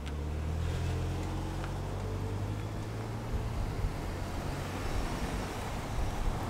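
A motor vehicle's engine passing by: a low hum that is strongest in the first three seconds and then fades.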